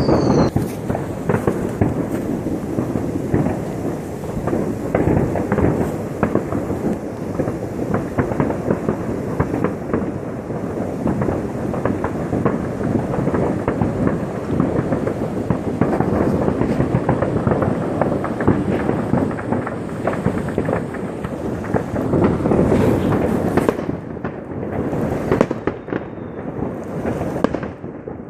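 Dense, continuous barrage of New Year's fireworks and firecrackers going off all around: many overlapping bangs, pops and crackles with no break, easing slightly near the end.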